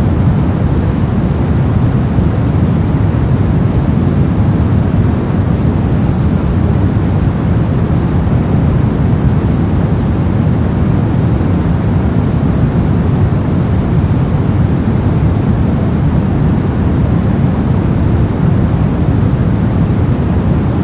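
Brown noise: a steady, deep rumbling hiss, strongest in the bass and falling away toward the treble, unchanging throughout.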